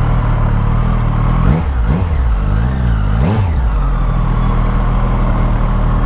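Triumph Street Triple RS three-cylinder engine idling, with a few quick throttle blips that rise and fall in pitch between about one and a half and three and a half seconds in, then settling back to a steady idle.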